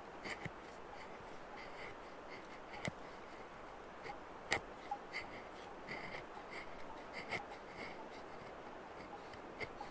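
Knife blade shaving curls off a stick of wood: short, irregular scraping strokes, with a sharp click about three seconds in and a louder one about four and a half seconds in.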